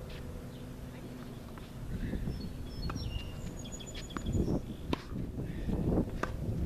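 Tennis balls struck by rackets and bouncing on a hard court during a warm-up rally: a few sharp pops in the second half. A bird chirps around the middle.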